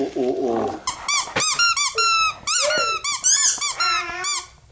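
Squeaky toys being squeezed over and over, giving a fast run of short, high squeaks that rise and fall in pitch, starting about a second in. A small child's voice comes just before them.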